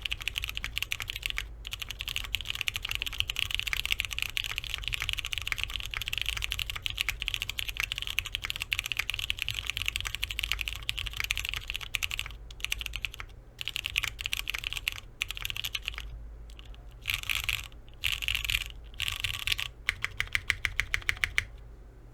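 Typing on a Neo65 gasket-mount keyboard with a polypropylene plate, Cherry MX Hyperglide Brown tactile switches and doubleshot keycaps, keys clacking in a dense, continuous stream. About two-thirds through it breaks into short bursts with pauses, ending in a quick run of evenly spaced key presses.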